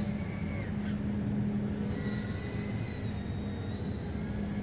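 Brushless motors of a FuriBee Q95 micro FPV quadcopter, heard as a faint high whine at a distance that drifts up and down in pitch with throttle. Under it runs a steady low hum.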